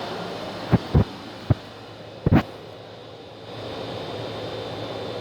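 Four sudden low thuds of handling noise on the microphone in the first half, the last the loudest, over a steady low hum.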